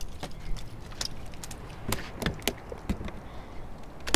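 A string of sharp knocks and slaps, loudest right at the end: a freshly landed Spanish mackerel flopping on a plastic cooler lid.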